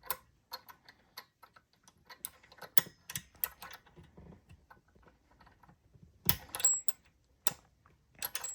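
Small hard parts being handled: irregular light clicks and taps, with a louder clatter of several knocks about six seconds in.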